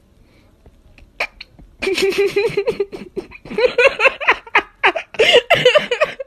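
A person laughing in fits. Rapid short pulses start about two seconds in, then louder, higher bursts of laughter follow with breaths in between.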